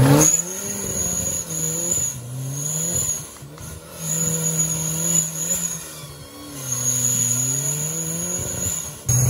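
Off-road 4x4's engine revving up and down several times, with a high whine that comes and goes, as it works through deep mud.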